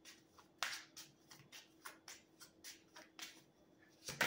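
A deck of oracle cards being shuffled by hand: soft, quick card swishes about three a second, with a sharper card snap just before the end as a card is pulled.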